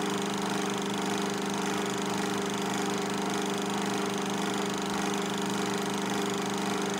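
Film projector running: a steady mechanical hum and whir with a fast, even pulsing underneath and a hiss over it.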